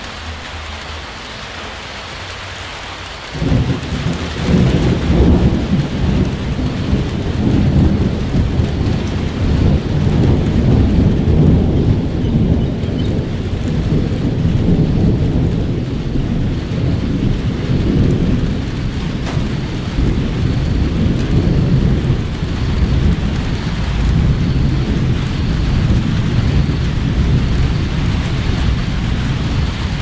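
Steady rain falling, then about three seconds in thunder breaks in suddenly and keeps rolling as a loud, deep rumble over the rain.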